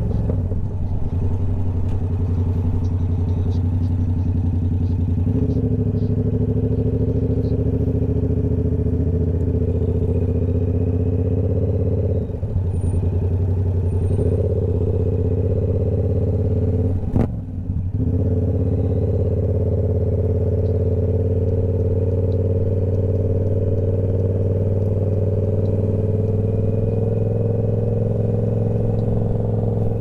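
Yamaha R7's parallel-twin engine running through a Toce full exhaust system while riding, holding a steady engine speed. The level drops briefly twice, about twelve and seventeen seconds in, the second time with a sharp click.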